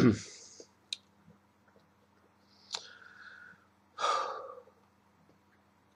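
A man's cough trailing off right at the start, then quiet breathing with a couple of small clicks, and a louder sighing breath out about four seconds in.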